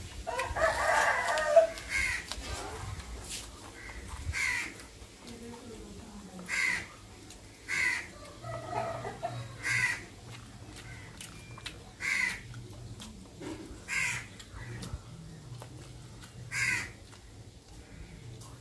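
A bird calling: short calls repeated about every two seconds, with a longer, louder sound near the start.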